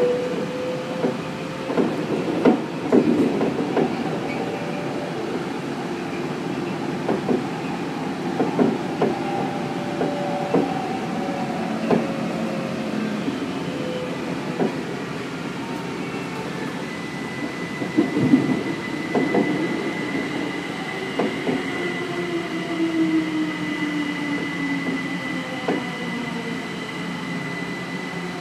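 Kaohsiung MRT Red Line train heard from inside the car, running and slowing into a station: steady rolling noise with scattered clacks from the wheels over rail joints and switches, and gliding whining tones that fall over the last several seconds. A steady high-pitched tone sets in a little past halfway.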